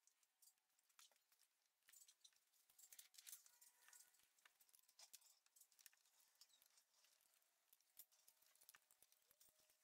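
Near silence with faint scattered clicks and taps, as the engine fan and its bolts are worked into place by hand.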